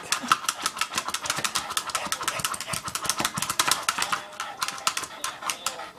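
A Boston terrier's claws scratching and pawing rapidly at a large inflated rubber ball: a fast, dense run of clicks and scrapes, several a second, easing briefly about four seconds in before going on.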